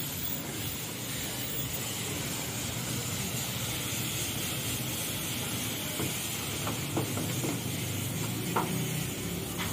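High-pressure water jet from a hose spraying the underside and wheel arches of a car raised on a lift: a steady hiss of spray with water spattering off the body, a few faint knocks in the second half.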